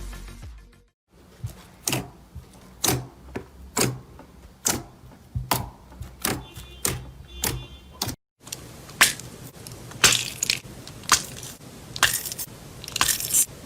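Slime being pressed and poked by hand, giving sharp clicks and crackles about twice a second. After a short break near the middle, a second slime gives louder, crunchier crackles.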